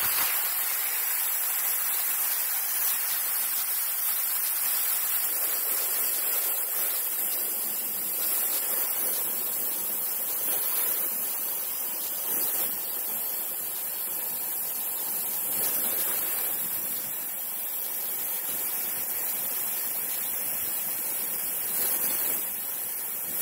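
Steady, even rushing noise of running machinery in the engine compartment of a TEM2 diesel shunting locomotive.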